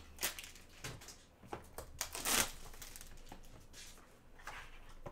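Foil wrapper of a Bowman Inception trading-card pack being handled and opened: scattered crinkles and rustles of the foil and cards, with the loudest crinkling burst a little over two seconds in.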